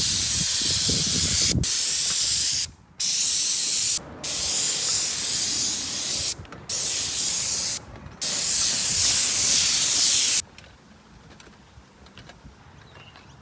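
Spray gun hissing in long bursts as its trigger is pulled and released, about six times with brief gaps, stopping about ten seconds in. This is the high-pressure spraying of a roof restoration.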